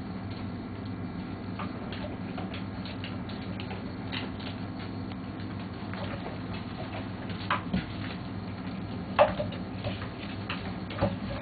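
Border Collie puppies scrambling about on a hard kitchen floor: light scattered pattering and clicking of paws and claws, with two louder knocks in the second half, over a steady low hum.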